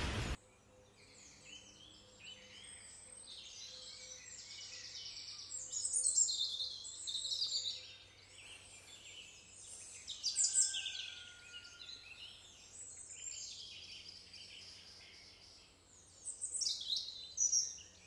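Several small wild birds singing and calling in a dawn chorus: a continuous mix of high chirps and short song phrases, with louder bursts about six, ten and seventeen seconds in, over a faint steady low hum.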